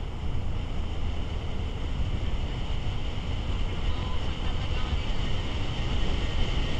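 Steady wind rush and road noise on a GoPro mounted on the outside of a moving car, with tyres rolling on asphalt.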